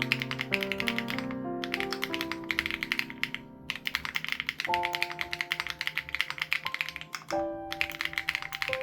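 Fast, continuous typing on an SPM AL87B mechanical keyboard with BSUN Raw switches and its sound-dampening foam removed, with two brief pauses. Soft background music of held chords plays underneath.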